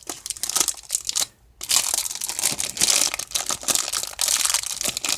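Crinkling and tearing of a baseball card pack's wrapper as it is pulled open by hand, in a rapid run of crackles that stops briefly about a second and a half in.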